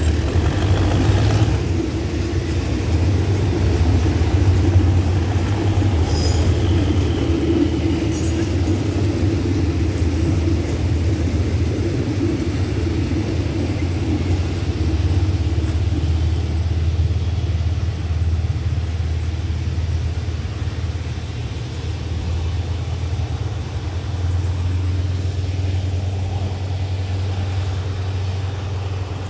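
GE-built diesel-electric locomotive working hard as it pulls a passenger-style train away, a steady low engine drone with the carriages' wheels rolling past, with a few brief clicks a few seconds in. The sound slowly fades as the train draws away.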